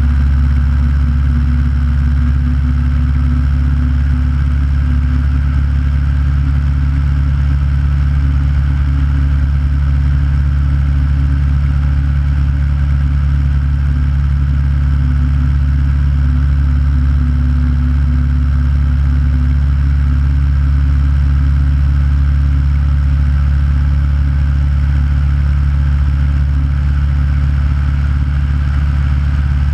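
Aeronca light aircraft's engine and propeller running steadily in flight, a constant low drone that holds the same pitch throughout.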